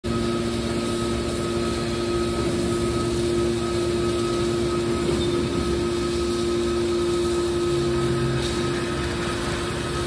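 Hydraulic power unit of a scrap metal baler running with a steady hum while the cylinders lower the top press lid. One of its tones drops out about halfway through.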